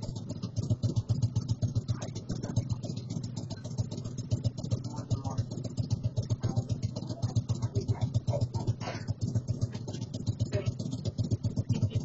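Motorcycle engine idling with a rapid, even low pulse, heard through a doorbell camera's microphone.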